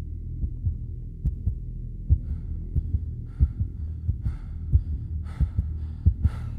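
Trailer sound design: heartbeat-like thumps over a steady low drone. From about two seconds in, noisy hits land on the beats and grow louder toward the end, building tension.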